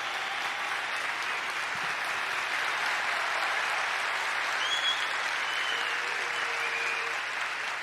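A large theatre audience applauding, a steady wash of clapping that swells a little around the middle.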